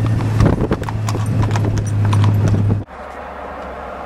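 Hooves clopping on the road surface as livestock walk past: a run of irregular sharp clicks over a steady low engine hum. A little under three seconds in, the sound cuts off abruptly to a quieter background.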